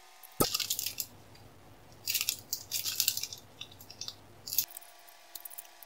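Crinkling of small clear plastic packaging bags being handled, in several irregular bursts.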